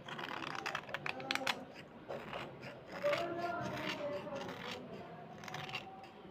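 Knife blade scraping a slate pencil in a run of short scraping strokes, thickest in the first second and a half.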